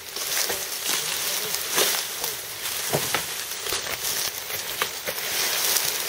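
Dry sugar cane stalks and leaves crackling and rustling as they are handled and stacked, with scattered knocks and snaps.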